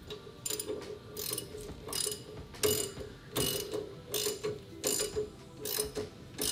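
Hand ratchet clicking in short bursts on each back-swing, about one every 0.7 seconds, as it turns the screw of a C-frame ball joint press. The press is seating a new upper ball joint into a Jeep Cherokee's steering knuckle.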